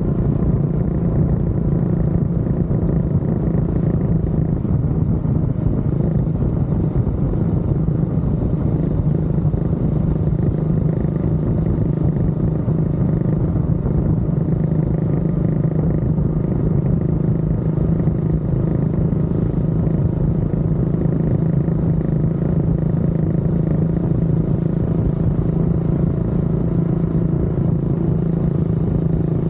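Honda CB400SS's air-cooled single-cylinder engine running while the motorcycle is ridden at a steady speed, its note holding one even pitch with no gear changes or revving.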